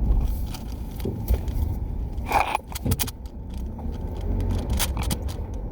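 A plastic 5x5x5 Rubik's cube being twisted by hand: a run of quick clicks and rattles as the layers turn, with a louder scrape about two and a half seconds in, over a low steady rumble.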